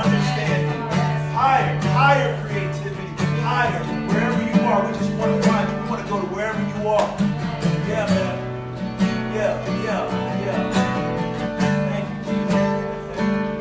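Worship music led by acoustic guitar, playing on steadily over sustained low notes.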